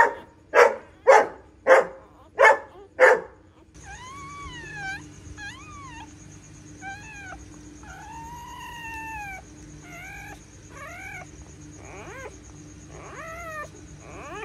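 A dog barks six times in quick succession, about two a second. Then, from about four seconds in, newborn puppies squeal and mew in high, rising-and-falling cries over a steady high-pitched hum.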